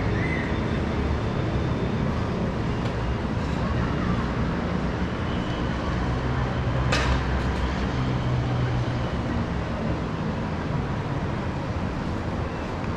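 Steady hum of road traffic from the street below, with a single sharp click about seven seconds in.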